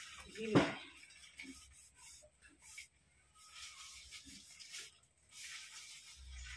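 Hand-washing dishes: a steel plate being scrubbed and scoured in irregular rubbing strokes, with one short louder sound about half a second in.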